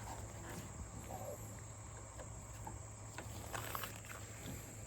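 Quiet background with a steady high-pitched insect drone and a few faint clicks.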